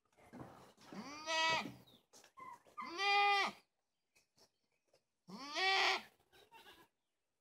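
A goat bleating three times, each call under a second long and rising then falling in pitch.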